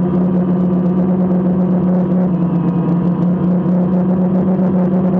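DJI Phantom quadcopter's motors and propellers humming at a steady pitch with a rough whirring underneath, heard from the camera mounted on the drone.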